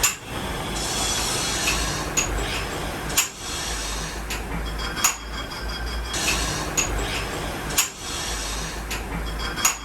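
Metal clinks and knocks with some scraping, several times over a steady background hum.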